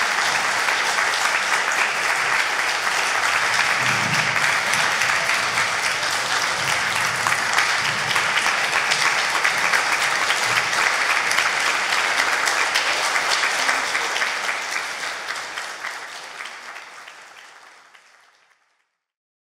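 Audience applauding steadily, fading out over the last few seconds.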